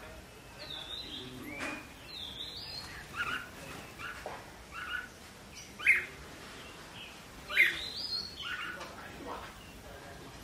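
Red-whiskered bulbul giving short chirping calls every second or two. Some calls slide down in pitch, and two louder calls come past the middle.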